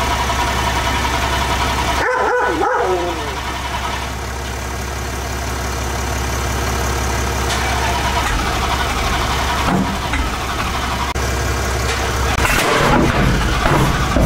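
Dodge Charger Hellcat's supercharged V8 idling steadily, shortly after its first start since sitting in storage. Brief high wavering cries about two seconds in, and the sound grows rougher and a little louder near the end.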